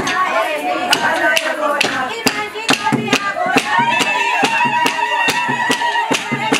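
Group of women singing to steady rhythmic handclapping, about two claps a second; in the second half one voice holds a long, high note.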